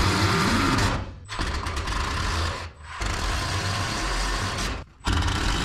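Cordless Milwaukee M18 Fuel impact driver running self-tapping screws into a steel garage door panel, in four runs of about one and a half to two seconds each, broken by short pauses.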